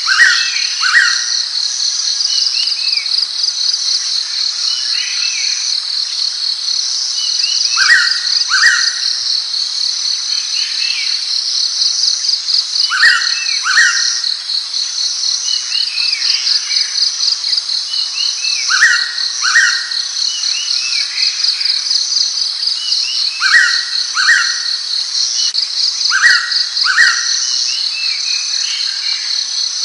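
Blue-winged pitta giving its loud two-note whistled call, repeated about every five seconds, over a steady, fast-pulsing insect chorus.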